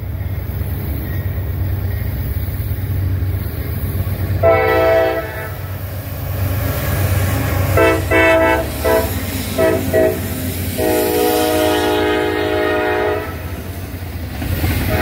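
Freight diesel locomotive's air horn sounding several notes at once: a short blast about four and a half seconds in, a quick string of short toots around eight to ten seconds, then a long blast from about eleven to thirteen seconds. Under it runs the steady low rumble of the diesel engines and the train rolling past at close range.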